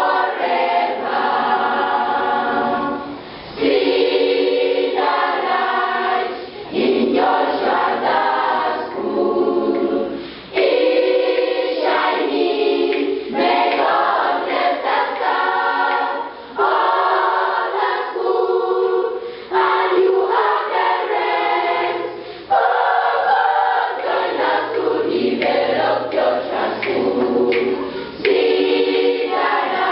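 School choir singing a greeting song unaccompanied, in phrases of a few seconds with short breaks between them.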